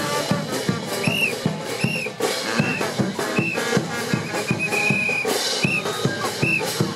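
Andean brass band playing a tinku rhythm with steady bass-drum beats, over which short rising-and-falling whistle blasts sound a little under once a second, one held longer about five seconds in.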